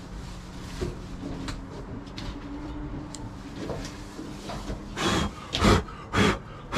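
A few faint knocks over a low steady hum, then about five seconds in, four short breathy puffs roughly half a second apart: blowing sanding dust out of the freshly cut dash opening.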